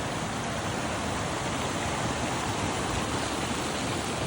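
Mountain river running, a steady, even rush of water.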